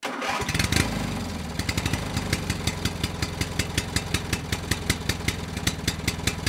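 An engine idling with a steady, even beat and sharp ticks about five times a second. It starts abruptly and is a little louder in its first second.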